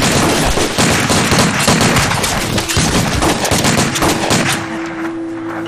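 A dense volley of pistol and rifle gunfire, shots overlapping rapidly, that thins out and dies away about four and a half seconds in as a held music note comes up.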